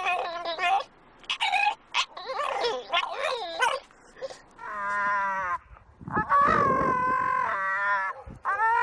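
An English bulldog puppy howling and yelping in fast, wavering, warbling calls that break off and restart, followed by longer drawn-out howls in the second half.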